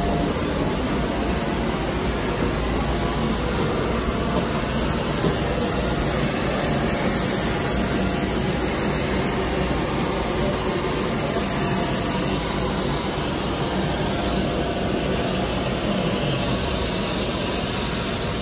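Steady, even rushing noise of a parked airliner's turbines.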